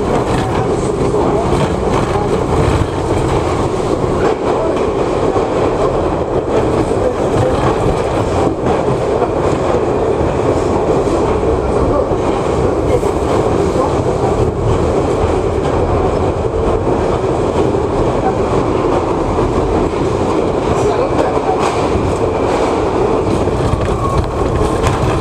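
R62A subway train running through a tunnel, heard from the front window: a steady rumble of steel wheels on rail, with scattered clicks over rail joints.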